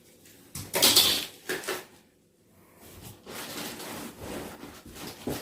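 Vacuum cleaner extension pipes and attachments being handled: irregular sliding, scraping and knocking, loudest about a second in, with a short gap of silence about two seconds in.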